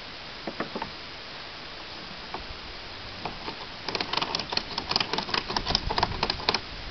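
Metal ratchet buckle of a tie-down strap clicking as it is worked: a few separate clicks, then about four seconds in a fast run of clicks, several a second, that stops shortly before the end.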